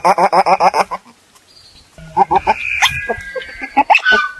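Otter calling: a rapid run of pulsed chattering calls, then after a short pause a looser string of calls with a thin high tone running through them.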